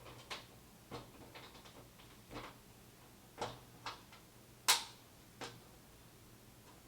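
Scattered light clicks and taps at an irregular pace, about a dozen, the loudest about two-thirds of the way through, over a faint steady low hum.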